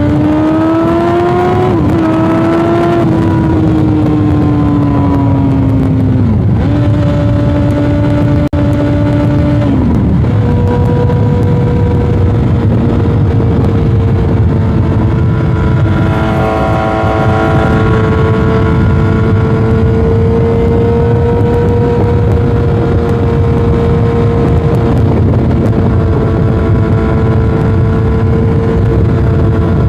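Yamaha R1 inline-four sport-bike engine under way. It revs up over the first few seconds, eases off, and changes gear twice, then holds a steady cruise for the rest, with wind rushing on the microphone underneath.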